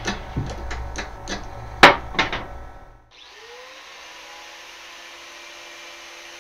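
Clicks and knocks of hand tools and clamps being handled, with one loud sharp clack just before two seconds. Then a small electric angle grinder spins up with a rising whine and runs steadily.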